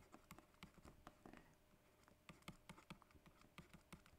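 Faint, quick, irregular ticks and taps of a stylus writing by hand on a tablet screen.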